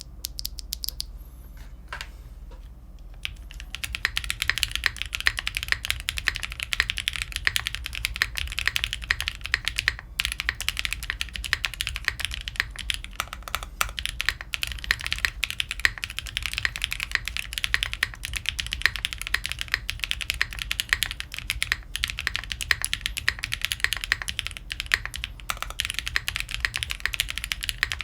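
Type test on a TKD Cycle7 tenkeyless mechanical keyboard fitted with KTT Laurel POM linear switches. A few single key presses come first, then fast, continuous typing starts about three and a half seconds in.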